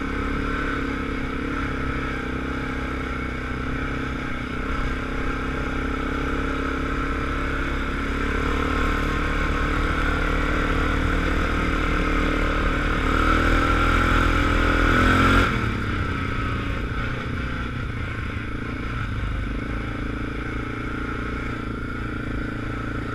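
ATV engine running under way on a snowy trail, its revs climbing steadily for several seconds and then dropping suddenly as the throttle comes off about two-thirds of the way through.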